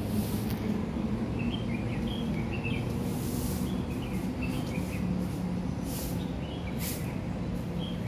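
Outdoor city-park ambience: a steady low hum of distant city traffic with small birds chirping here and there above it. A few brief hissing noises come and go.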